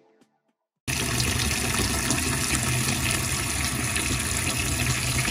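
Tap water running into a stainless-steel kitchen sink drain, starting abruptly about a second in. The drain is clogged, so the water backs up and pools in the drain instead of flowing away.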